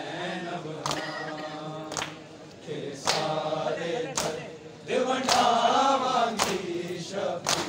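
Crowd of men chanting a noha together, with sharp slaps of hands striking bare chests about once a second: Shia matam.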